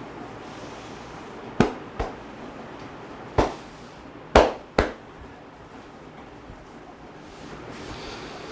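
Barber's hands striking during a head massage: five sharp slaps, the first two and last two in quick pairs.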